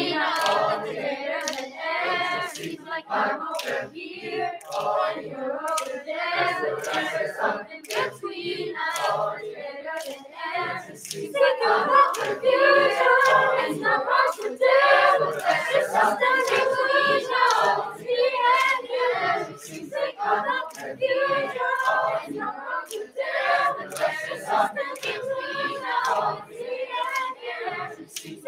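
Youth choir of children and teenagers singing a gospel-style song, with steady hand claps on the beat.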